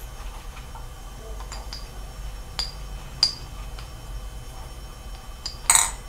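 AA batteries being slid one by one into the battery tubes of a Crelant V4A flashlight, making light scattered clicks and clinks against the metal body, with the loudest clink near the end.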